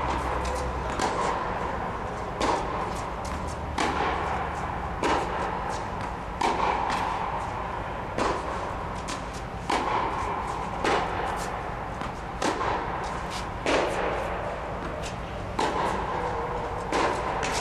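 Tennis rally: rackets striking the ball in groundstrokes, a sharp pop about every second and a half, each echoing under the air-supported dome, over a steady low hum.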